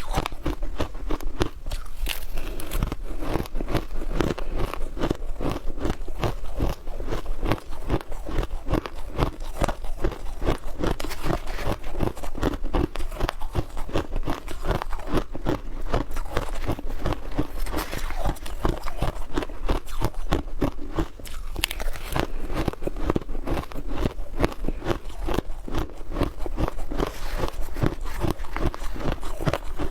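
Ice being bitten and chewed up close, with a rapid, unbroken run of crunches.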